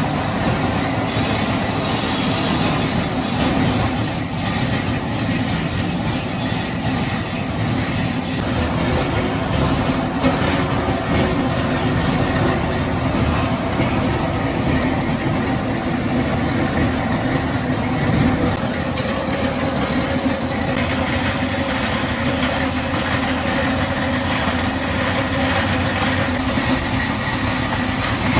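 Belt-driven plastic crusher running, a loud steady grinding clatter as strips of scrap plastic insulation are fed in and chopped.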